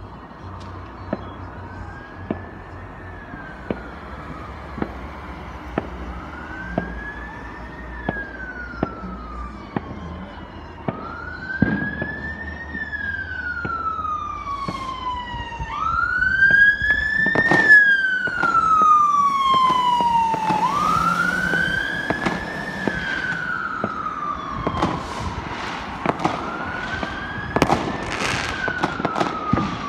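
An emergency vehicle's siren wailing in slow cycles, each a quick rise and a longer fall about every five seconds, loudest around the middle. Scattered bangs and crackles of fireworks go off throughout.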